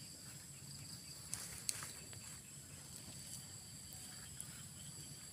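Insects chirring steadily on two high, thin pitches, with a couple of faint sharp clicks about a second and a half in.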